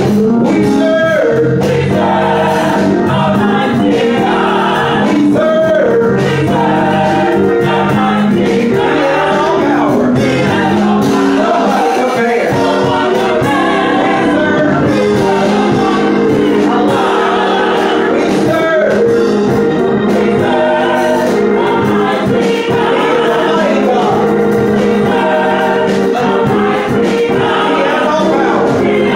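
Gospel choir singing together through microphones, several voices in harmony, in a steady, continuous song.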